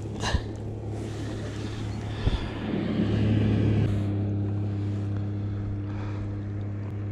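Steady low engine drone with a constant pitch, changing abruptly about four seconds in, with a short knock about two seconds in.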